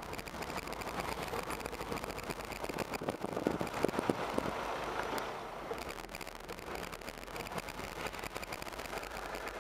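Muffled car noise heard from inside a moving car's cabin, with a few short knocks near the middle.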